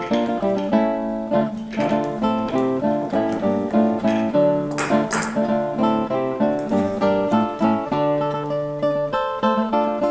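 Background music: an instrumental early-music piece played on a plucked string instrument, with a quick, steady run of notes.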